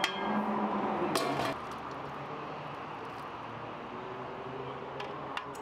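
Steady background hum and hiss, louder for the first second and a half, with a couple of light clinks about five seconds in as a metal ladle works a large aluminium stockpot.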